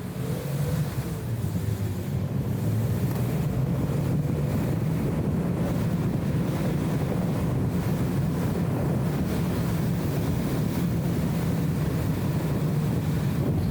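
BMW E34 M5 Touring's straight-six engine and road noise while driving, heard as a heavy, low, blurred buzz that the camera's anti-wind filter has mangled into a 'BRRRR'. The engine note rises at the start and the sound gets louder about half a second in, then holds steady.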